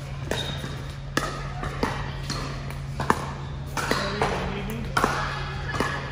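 Pickleball paddles hitting the hard plastic ball in a rally: a string of about eight sharp, irregular pops, one every half second to a second, with the echo of a large hall.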